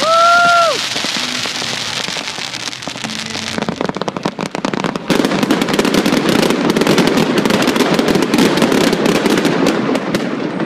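Daytime fireworks: a short, loud whistle at the very start, then continuous rapid crackling of firework effects, thinning out briefly in the middle and then dense and loud again for the second half.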